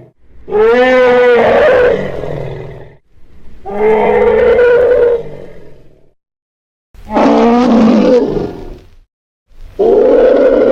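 Elephant trumpeting sound effects: four loud calls, each about two seconds long, separated by short pauses. The first call wavers up and down in pitch.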